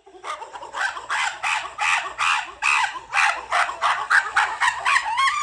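Domestic fowl calling: a quick series of short pitched calls, about two to three a second.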